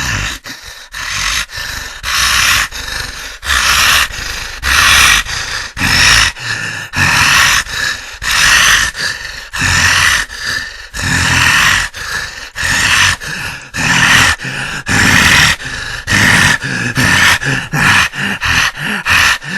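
Beast sound effect of heavy, rasping panting and choking gasps: loud harsh breaths in irregular runs of about one to two a second, some with a low growl beneath them.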